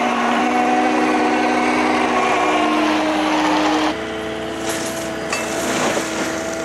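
Compact track loader with a forestry mulcher attachment running steadily, its diesel engine and mulcher drive making several steady tones. About four seconds in the sound drops a little and its pitch changes as the machine is heard from farther away.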